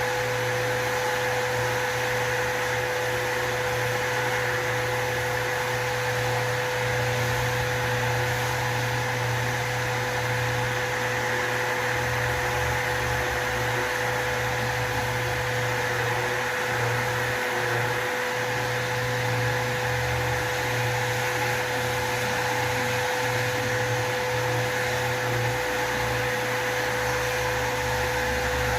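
Random orbital sander with a vacuum dust extractor attached, running steadily while sanding acrylic putty. It gives a constant whine over a low hum that wavers in strength with the sanding.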